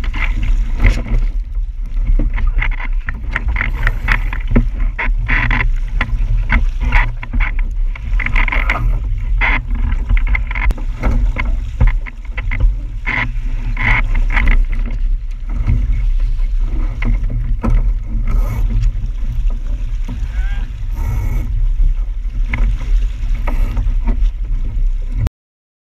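Musto Skiff sailing dinghy under way, heard through the boat-mounted camera's microphone: a heavy, steady wind rumble with dense splashing and knocking from water against the hull. It cuts off suddenly near the end.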